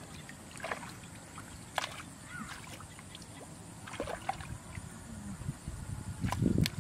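Hands groping and sloshing in a shallow muddy puddle, with scattered small splashes and drips; the sloshing grows louder and fuller near the end.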